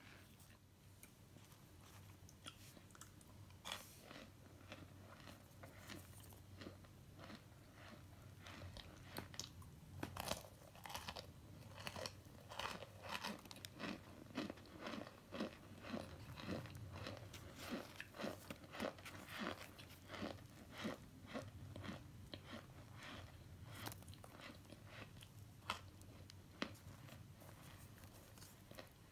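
Chunks of dried, chalky starch crunching and crumbling as fingers squeeze and break them. Soft, crisp crunches come singly at first, run thick and fast through the middle, then thin out near the end.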